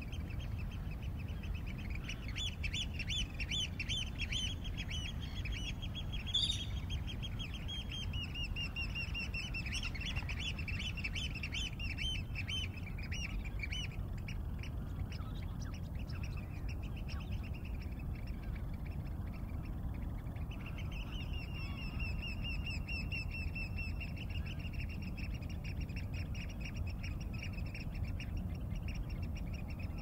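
Birds calling in fast runs of short, repeated high notes, in one long bout from about two seconds in and another from about twenty seconds in, over a steady low rumble. One brief sharp click about six seconds in.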